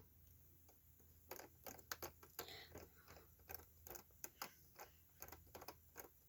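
Near silence broken by faint, irregular clicks and taps, typical of someone operating a computer or touchscreen while waiting for a map to load.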